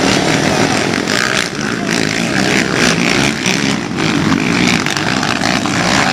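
ATV engine running continuously, its level rising and dipping slightly as the throttle changes.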